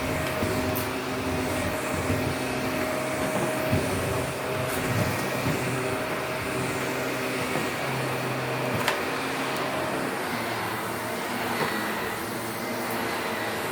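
Shark Professional upright vacuum cleaner running steadily on a test run after its roller and belt have been reassembled, a constant motor tone over the airflow noise, with a few sharp clicks.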